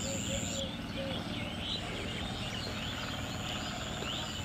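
Outdoor birdsong: many small birds chirping, with a lower call repeated about four times in quick succession in the first second. A steady high whine runs underneath and drops out for about a second near the start.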